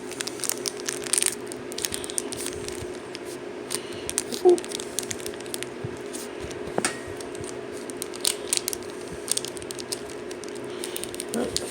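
Foil booster-pack wrapper crinkling and rustling as trading cards are pulled and slid out of it, with scattered irregular crackles. A faint steady hum runs underneath.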